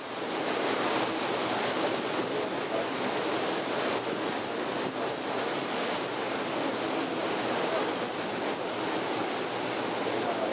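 Steady rushing of a moving boat's wake churning along the hull, mixed with wind buffeting the microphone on the open deck.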